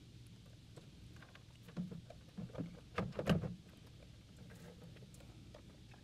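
Plastic knocks and clicks as a T9 keypad is fitted and seated into an ATM's keypad opening, a short cluster in the middle with the loudest knock about three seconds in, over a faint steady hum.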